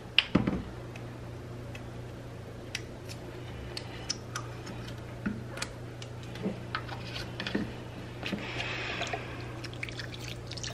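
Small clicks and taps of a plastic lemon juice bottle being opened: the cap unscrewed and the seal pulled off. Near the end, lemon juice starts pouring in a thin stream into the liquid in a slow cooker. A low steady hum runs underneath.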